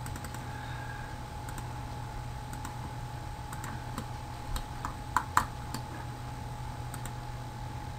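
A few sharp computer mouse clicks, two close together about five seconds in, over a steady low electrical hum and a faint steady tone from the recording chain.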